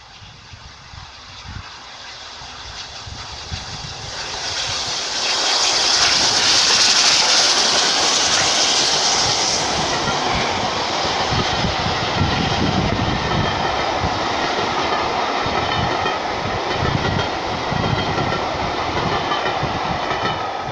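Peppercorn A1 steam locomotive Tornado and its train passing at speed: the sound builds as the engine approaches, loudest with a strong hiss about six to nine seconds in, then the coaches run by with a steady rhythmic clickety-clack of wheels on the rails.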